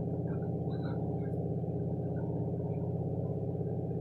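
A steady low mechanical hum, with a few faint small clicks in the first second or so.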